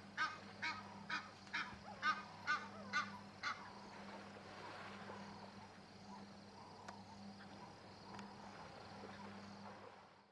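A bird honking over and over, about two calls a second, which stop about three and a half seconds in. After that only faint outdoor background remains, with a low steady hum.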